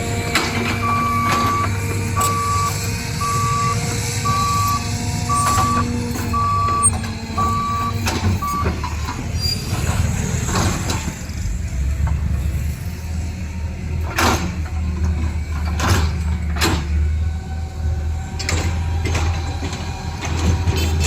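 A vehicle's reversing alarm beeps about once a second for some eight seconds over a steady low engine drone. Then the beeping stops, and a few sharp knocks and clatters come over the drone.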